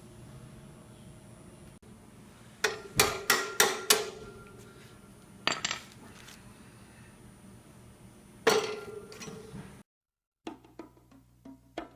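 Wire pocket strips being tapped down into a display hub to seat them: a quick run of five sharp taps, then a single tap, then a louder one with a short metallic ring. Near the end the tapping gives way to background music with light wood-block percussion.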